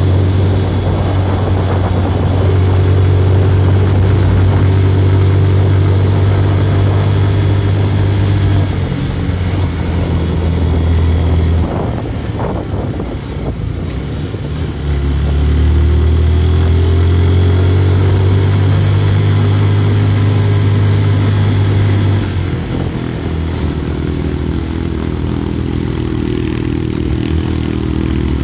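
Small motorcycle engine running steadily under way, its pitch stepping down and up several times as the speed changes, with road and wind noise.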